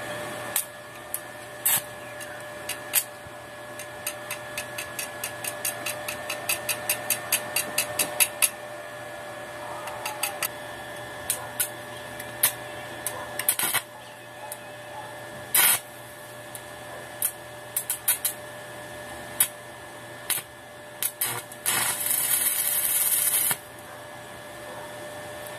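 Stick welding on a steel motorcycle swing arm. The arc crackles in short strikes: first a quick run of ticks, about four a second, lasting several seconds, then scattered single strikes, and near the end a sustained crackling hiss of about a second and a half as a short bead is laid. A steady hum runs underneath.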